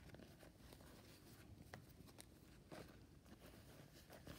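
Near silence with faint handling of a small fabric handbag: a few soft clicks and rustles as its flap is opened and the bag is held open.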